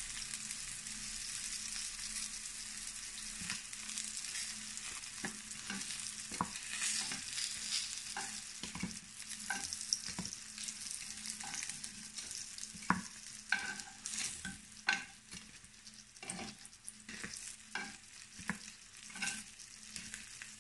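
Cubes of firm tofu frying in oil in a pan, the oil sizzling steadily and a little quieter toward the end. Light clicks and taps come through as the cubes are lifted out with a metal utensil, more often after the first few seconds.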